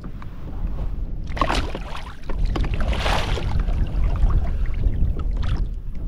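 Strong wind rumbling on the microphone, with water sloshing and a few splashes as a bull redfish is held in the water beside a kayak and released.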